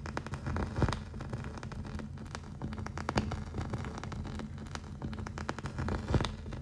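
Vintage-film surface noise: irregular crackles and pops over a low steady hum, with a few louder pops about a second in, near three seconds and near the end.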